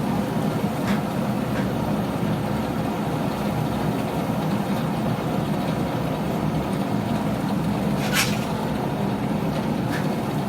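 Steady mechanical noise at an even level, with a sharp click about eight seconds in and a fainter one near the end.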